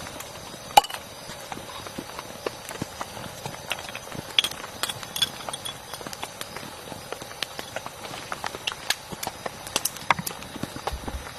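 Rain falling, with heavy drops tapping irregularly close by over a steady hiss.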